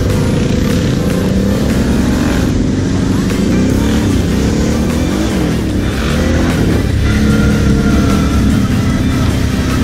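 Kawasaki KFX 700 quad's V-twin engine running on the move, its pitch rising and falling a few times in the middle as the throttle is opened and eased off.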